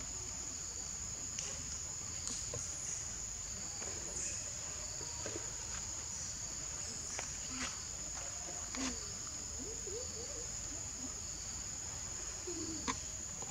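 Steady, high-pitched chorus of insects shrilling without a break, with faint scattered clicks and a few short low chirps over it.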